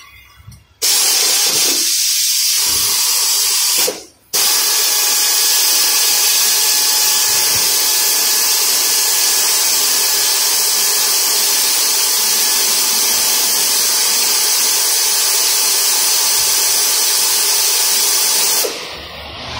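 Compressed air hissing loudly and steadily, cut off for a moment about four seconds in and stopping shortly before the end.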